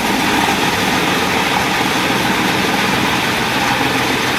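Chaff cutter running steadily, its blades chopping green fodder.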